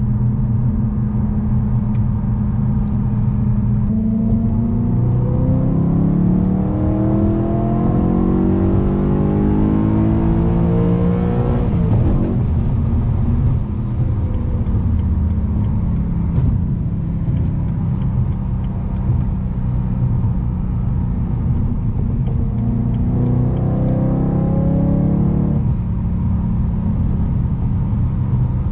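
BMW E92 M3's S65 4.0-litre V8, muffler-deleted, under way: a steady low drone, then the revs climb in one long pull of about eight seconds that cuts off sharply as the throttle is lifted, followed by a shorter pull of a couple of seconds near the end that also drops away.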